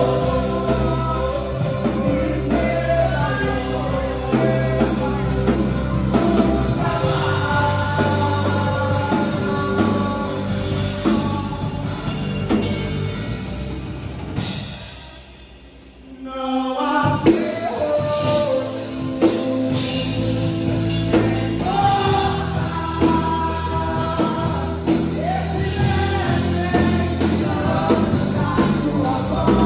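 Gospel worship music: singers over a band playing a medley of praise songs. About halfway through, the music drops away for a moment between songs, then the band and voices come back in.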